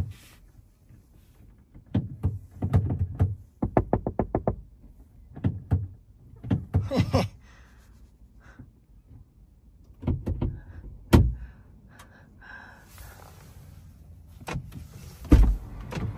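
Knocks and clicks on a car's passenger door: a quick run of about ten taps about four seconds in, a sharp click about eleven seconds in, and a heavy thunk near the end as the door is opened.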